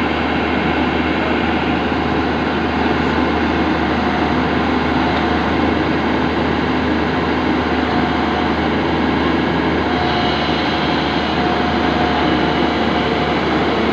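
JCB NXT205 excavator's diesel engine running steadily under working load.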